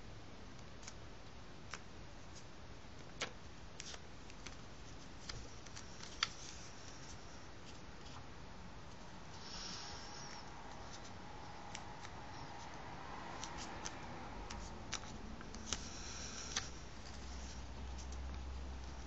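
Paper strip being folded and creased by hand: scattered sharp crinkles and taps as the folds are pressed, with short bursts of soft rustling about halfway through and again near the end.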